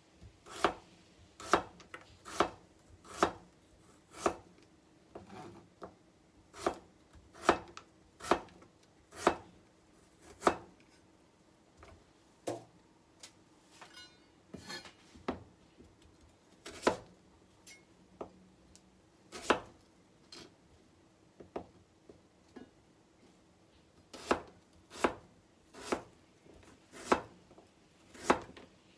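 Kitchen knife cutting a peeled turnip into chunks on a cutting board: sharp, irregular knocks as the blade goes through and meets the board, about one a second, with a quieter stretch about halfway through while the pieces are handled.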